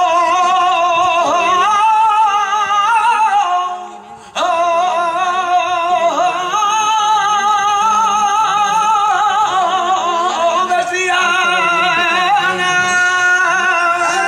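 Male flamenco singer (cantaor) singing long held phrases with a wavering, ornamented line, breaking briefly for breath about four seconds in.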